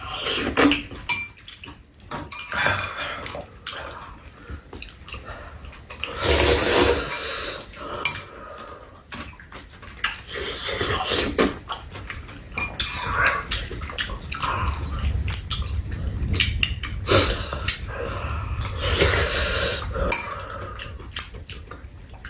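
Metal spoons and chopsticks clinking and scraping against soup bowls during a meal, with bouts of slurping of hot soup.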